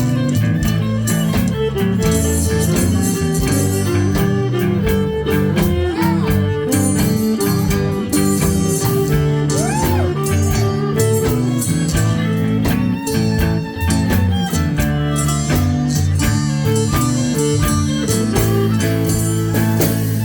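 Blues band playing an instrumental passage: guitar to the fore over bass and a steady drum beat, with bent notes in the lead.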